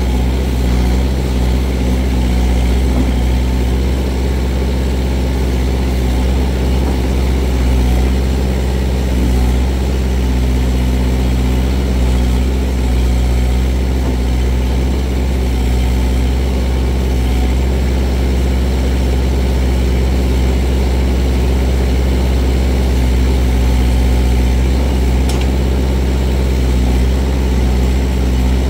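Kubota L48 tractor-loader-backhoe's diesel engine running steadily while the backhoe boom and bucket are being worked.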